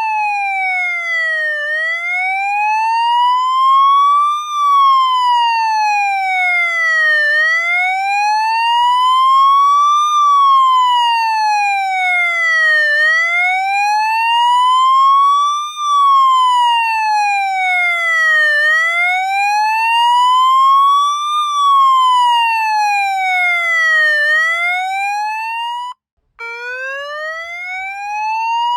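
Police siren wailing: one clean tone slowly rising and falling, about one full rise and fall every six seconds. Near the end it cuts out for a moment and restarts lower, climbing again.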